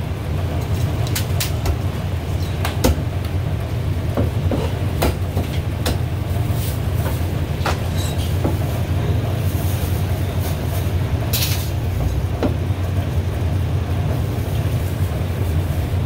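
Chinese cleaver chopping roast goose on a thick wooden chopping block: irregular sharp knocks about one a second, one louder strike about two-thirds of the way through, over a steady low background hum.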